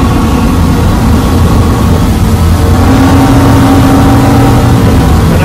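Twin Suzuki 350 hp V6 outboard engines running steadily under way, heard from inside the boat's enclosed helm cabin, with a steady engine tone that comes up about three seconds in.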